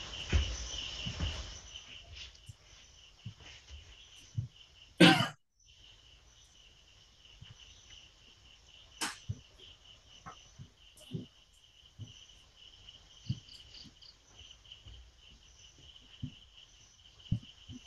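Night insects, crickets, chirping in a steady high pulsing trill, with scattered faint clicks and taps. A short loud noise about five seconds in is followed by a brief cut-out of all sound.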